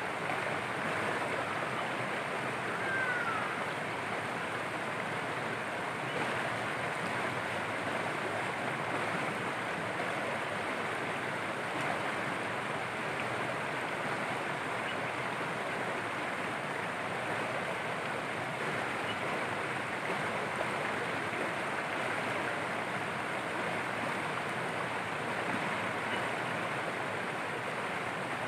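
A rocky mountain stream running over stones: a steady, even rush of water.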